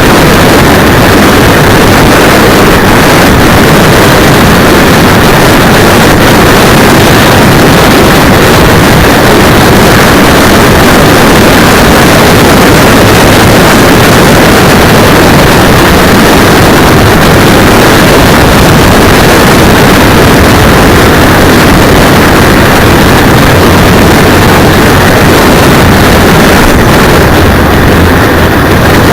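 Steady, overloaded rush of wind and motorcycle engine and road noise on the tiny microphone of a cheap 808 keychain camera strapped to a motorcycle's handlebar brake cylinder while riding, distorted and unbroken.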